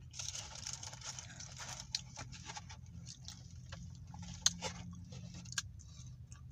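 Close-up eating of KFC fried chicken: a stretch of crunching in the first two seconds, then scattered wet mouth clicks and smacks of chewing.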